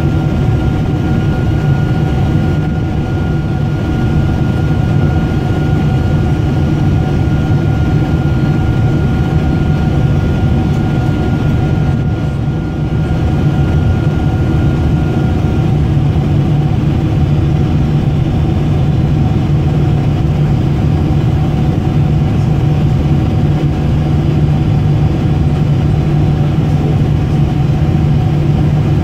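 Cabin noise inside a Boeing 747-400ER on its descent: a loud, steady rumble from the General Electric CF6 turbofans and the airflow, with a steady hum. A thin high whine runs alongside and stops about halfway through.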